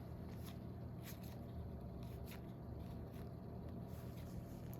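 Trading-card packaging being opened and the cards handled: a few short, soft crinkles and clicks spread over a few seconds, over a steady low hum.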